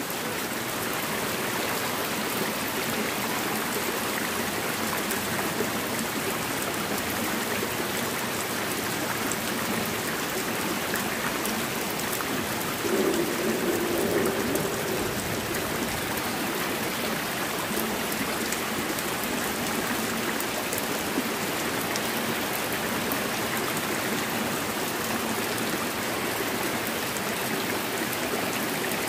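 Heavy rain falling onto fast-flowing water in a small ditch, a steady even rushing hiss.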